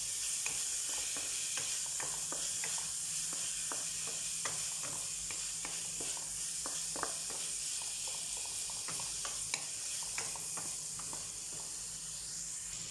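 Tomatoes frying with garlic in hot oil in a pan, a steady sizzle, with irregular light taps as the pan is stirred.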